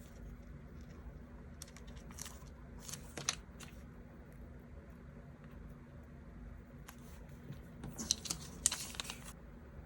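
Kiss-cut paper stickers being handled, peeled from their sheet and pressed onto a diary page: soft crinkles and small ticks in short clusters about two seconds in, around three seconds, and again near the end.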